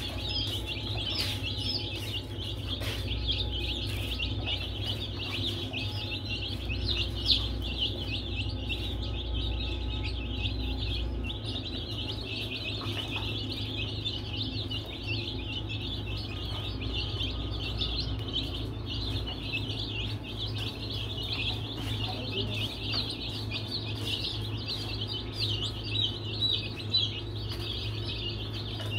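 A group of baby chicks peeping continuously, many short high chirps overlapping, over a steady low hum.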